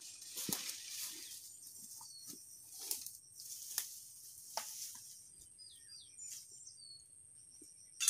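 Footsteps in rubber boots crunching irregularly through dry leaves and grass, with plants rustling and brushing as a person walks carrying a log. A few faint, short high bird chirps come about six seconds in.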